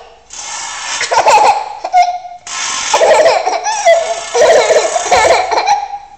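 A toddler laughing hard in giggles and belly laughs, in two long fits with a short break about two seconds in.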